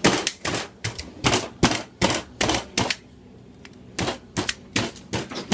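A meat tenderizer striking the skin of a whole raw suckling pig over and over, sharp strikes about three a second. The strikes pause for about a second near three seconds in, then start again. The tool is puncturing the skin so the fat can render out and the skin crisp into crackling.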